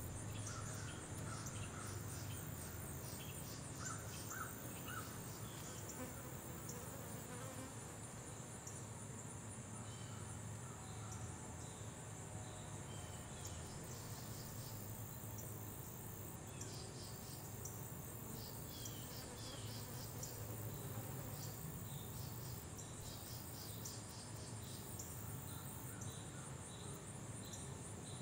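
Outdoor summer ambience: insects trilling steadily in a high pitch, with scattered short bird chirps and a faint low hum underneath.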